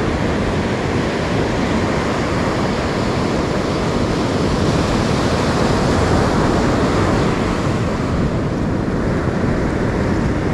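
Pacific Ocean surf washing steadily on a sandy beach, with wind rumbling on the microphone.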